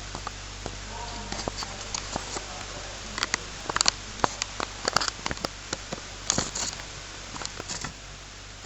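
Irregular light clicks and scrapes of small hand tools working on a mobile phone's SIM socket, over a steady low electrical hum.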